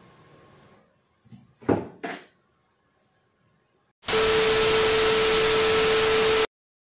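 A loud burst of static-like hiss with a steady beep tone through it, lasting about two and a half seconds and cutting off abruptly. A couple of short knocks come a few seconds before it.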